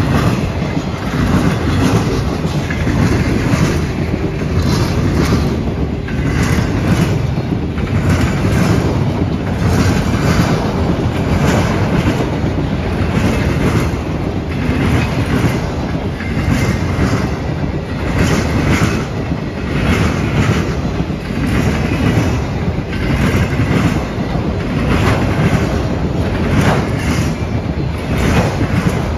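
Autorack cars of a freight train rolling past at close range: a steady rumble of steel wheels on rail, with a clickety-clack about once a second as the wheel sets pass.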